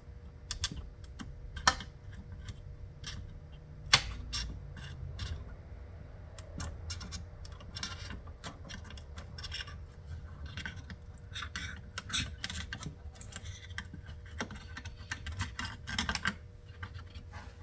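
Hands handling a circuit board and chip on a workbench: irregular small clicks, taps and scratches, with a sharper knock about four seconds in.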